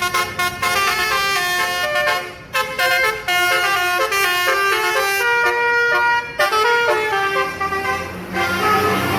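A bus's multi-tone 'basuri' telolet horn playing a melody of short stepped notes, stopping about eight seconds in, with the bus engine running underneath.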